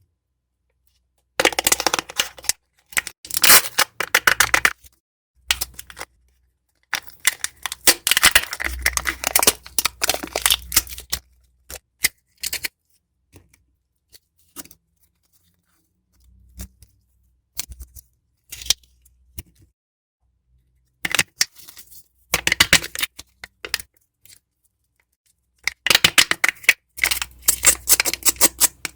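Foil wrappers of Kinder Surprise chocolate eggs crinkling and tearing as they are peeled, in bursts of a few seconds with silent gaps and a few single clicks between.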